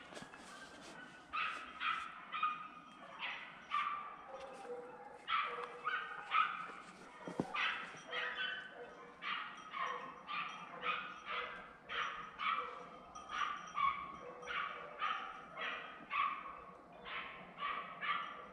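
Jagdterriers barking at game during a wild boar drive: a steady run of short, sharp barks, about two a second, starting about a second in.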